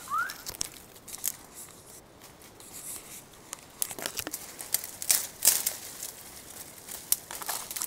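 Dry reeds and brittle twigs crackling and snapping as a person pushes through thick dead undergrowth by hand, in irregular bursts that are busiest around the middle.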